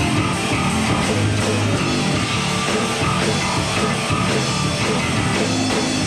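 A live rock band playing loudly: electric guitars over a drum kit, a dense, steady wall of sound with no pause.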